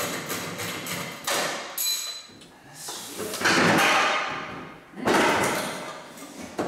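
A plastic pickup front bumper cover being pried and pulled loose from its clips: a couple of knocks and a short squeak, then longer stretches of scraping and rubbing plastic.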